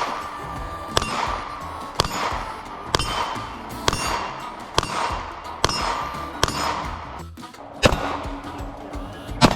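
Gunshots about once a second, each followed by the ringing clang of steel targets being hit. Faint background music underneath.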